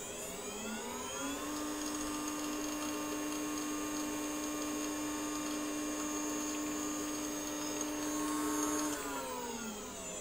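Teknomotor CNC router spindle run without its cooling fan. Its motor whine rises in pitch as it spins up about a second in, holds steady, then falls as it spins down near the end. At this low noise level it is clear the fan, not the spindle, makes the loud noise.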